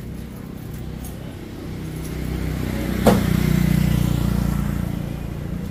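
A motor vehicle passing close by: its engine hum grows louder to a peak about three seconds in, with one short sharp sound at the peak, then fades away.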